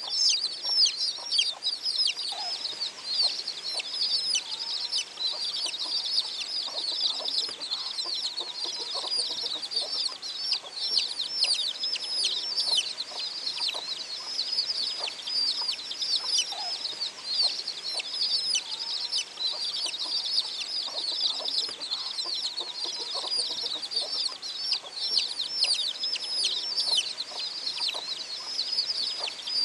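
A group of young chicks peeping without pause, many high, downward-falling peeps overlapping each other.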